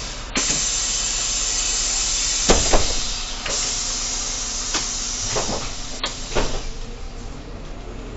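Irisbus Crossway LE 12M bus running, heard from the cab as a steady loud hiss with several sharp knocks and rattles; the hiss fades toward the end.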